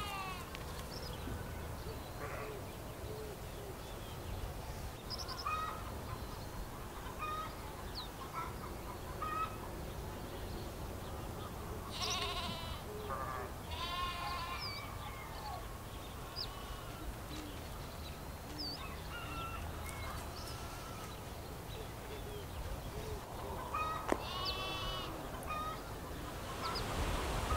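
Farm animals bleating a few times, first about twelve seconds in and again near the end, with faint short chirps scattered between the calls.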